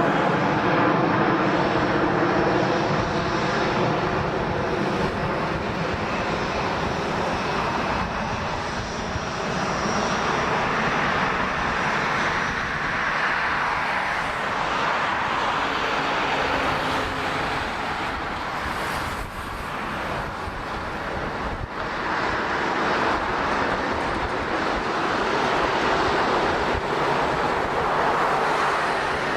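Jet airliner engine noise, a steady roar that holds at a constant level, with a faint steady whine in the first several seconds.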